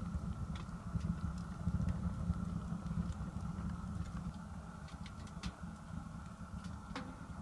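Low, uneven rumble of wind buffeting the microphone, with a few faint clicks.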